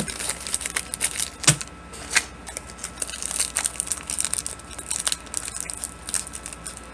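Trading card pack's foil wrapper crinkling and crackling as it is torn open and handled, with a sharper snap about a second and a half in.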